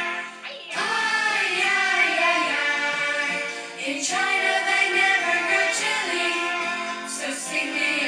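Recorded music playing, a song with a singing voice over the accompaniment.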